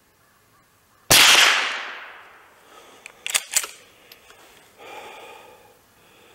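A single .22 LR rifle shot from an FN Browning Trombone pump-action, about a second in, with a long fading echo. A couple of seconds later come two quick metallic clacks from the pump slide being worked back and forward to cycle the action.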